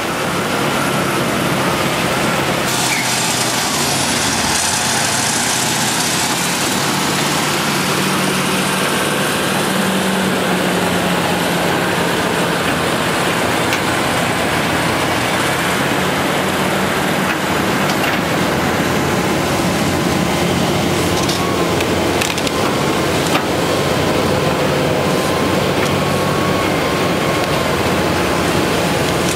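Diesel engines of heavy earth-moving machinery, an excavator and a wheel loader, running steadily under load as they dig and load mud and wood debris.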